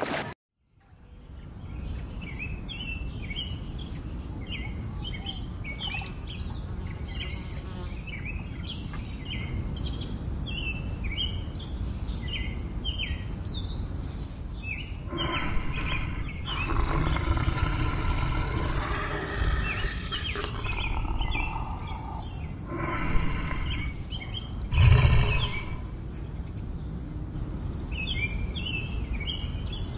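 Small birds chirping over and over on a steady low background rumble. In the middle, louder noisy stretches come and go, and a brief louder burst comes near the end.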